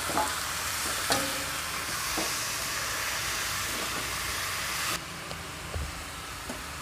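Raw chicken pieces sizzling in hot oil in a kadai while being stirred with a metal spatula, which scrapes and clicks against the pan a few times. The sizzle drops abruptly to a quieter level about five seconds in.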